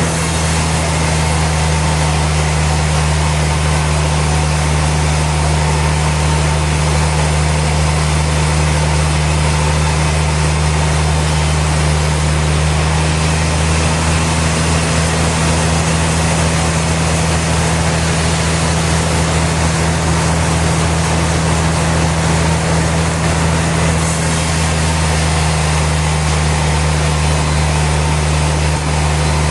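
Sawmill machinery running with a steady, unchanging low drone and a constant hiss above it.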